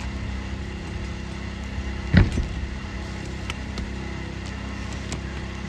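An engine running steadily with a low hum, with one sharp knock about two seconds in and a few faint clicks after.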